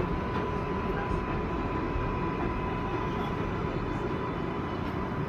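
Kawasaki R188 subway car braking to a stop, its speed falling from about 13 to 8 mph: a steady rumble of wheels on rail with a thin steady whine above it.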